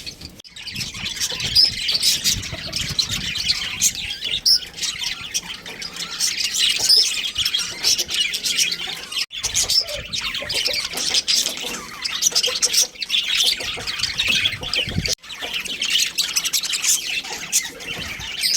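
Budgerigars chirping and chattering continuously, a dense stream of quick, high chirps and squawks.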